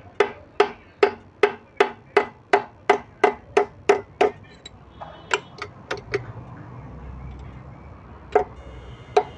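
Hammer blows on steel, driving the lock pin out of the gear shifter fork in a tractor PTO gearbox: a quick, even run of about a dozen ringing strikes, nearly three a second, then a few scattered taps.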